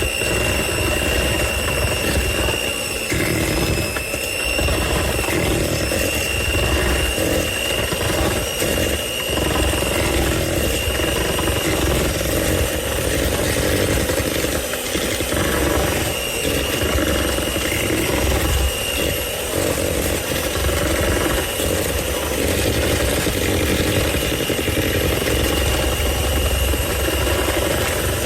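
Electric mixer running steadily, beating cake batter, with a continuous high whine.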